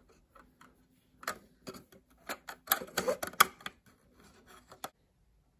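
Irregular small clicks and taps of a plastic HO scale boxcar door being pressed and seated onto its braces by fingertips, with a quick flurry about halfway through; the clicks stop shortly before the end.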